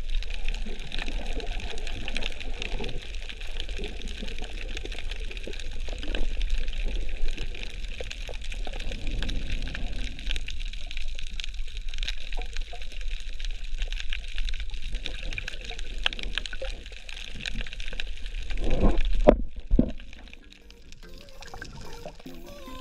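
Underwater water noise picked up through a camera housing: a steady muffled hiss and low rumble with scattered crackles. It swells louder about three-quarters of the way through, then drops off suddenly.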